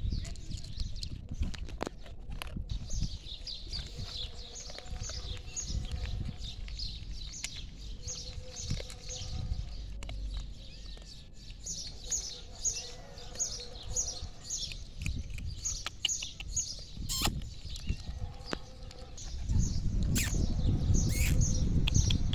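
Small birds chirping over and over, a few short high chirps a second. A low rumble swells near the end.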